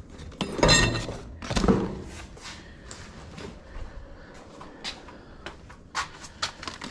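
Stored belongings being shifted and handled: two louder clatters about a second apart near the start, then scattered light clicks and knocks.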